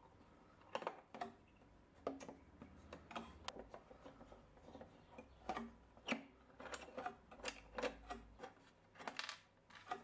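Irregular small metallic clicks and taps of a flathead screwdriver and small screws against a brass lock plate set in a wooden drawer, as the screws are worked in their holes.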